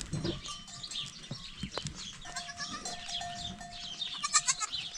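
Goats bleating, with a louder quavering bleat near the end.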